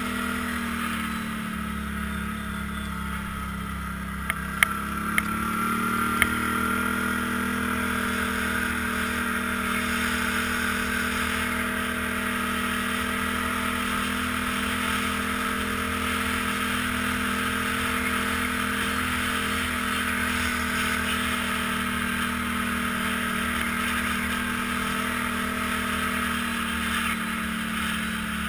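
ATV engine running steadily as the quad rides along a snow-packed trail. The engine eases off a couple of seconds in and picks back up, with a few sharp knocks at about the same time as it climbs.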